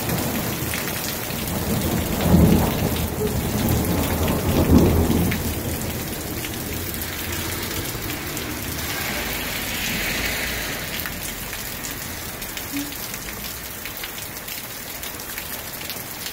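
Thunderstorm: steady rain falling, with thunder rumbling from about a second and a half in, peaking twice and fading out a few seconds later.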